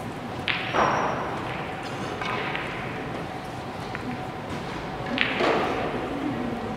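Two sharp clicks of carom billiard balls striking at neighbouring tables, about half a second in and about five seconds in, each followed by a short rush of noise, echoing in a large hall over faint distant voices.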